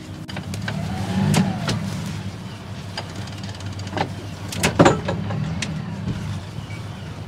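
A sailing yacht's inboard diesel engine running steadily at low revs while the boat manoeuvres into a berth. A few sharp knocks sound over it, the loudest a little before five seconds in.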